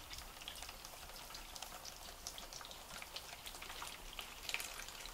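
Coolant dripping and trickling out of the open fill port of a Swiftech H220 all-in-one liquid cooler into a plastic tub of drained coolant. It makes a fast, irregular patter of drops, with one louder drop about four and a half seconds in.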